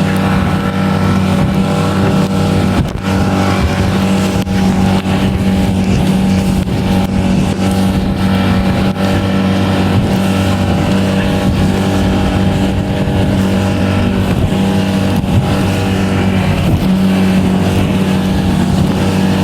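Shetland 536 motorboat's engine running at a constant speed under way, a loud steady drone with a strong low tone that barely changes in pitch, with a brief dip in level about three seconds in.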